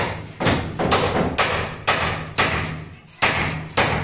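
Hammer striking nails into timber brandering battens on roof trusses overhead: a steady run of about nine sharp blows, roughly two a second.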